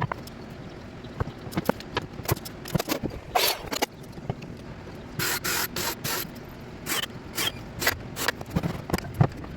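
Work on wooden firework mortar racks: a string of sharp clicks and knocks with several short hissing bursts, a run of them about five seconds in.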